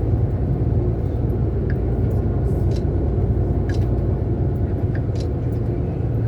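Steady low rumble of a moving tour bus, engine and road noise heard from inside the coach, with a few faint clicks.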